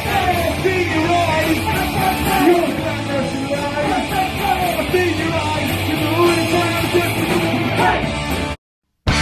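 Punk rock band playing live, with shouted vocals over loud distorted guitar, bass and drums. It cuts off suddenly near the end.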